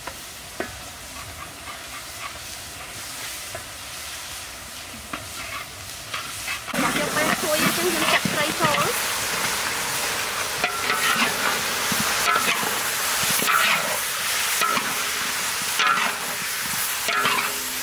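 A wok of hot oil and paste simmering with a low sizzle, then loud sizzling breaks out about a third of the way in as raw fish pieces are tipped in. After that a metal spatula scrapes and stirs the fish against the wok as it fries.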